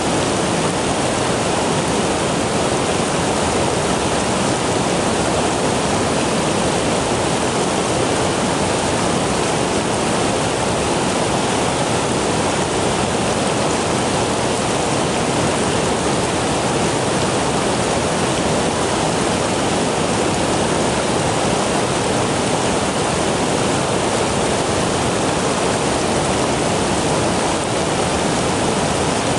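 River water rushing, a loud, steady, unbroken flow.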